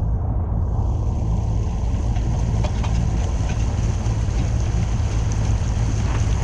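A fishing boat's outboard motor running steadily under way, with wind rumbling on the microphone.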